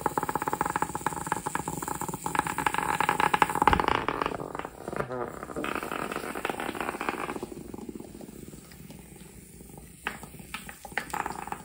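HEXBUG Nano vibrating bug toy buzzing and rattling on a hard floor, its vibration motor driving its rubber legs in a fast, dense chatter. The rattle grows fainter in the last few seconds.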